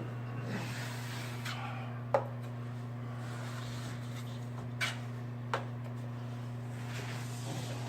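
Drywall finishing work: a few sharp taps and some soft scraping, over a steady low electrical hum.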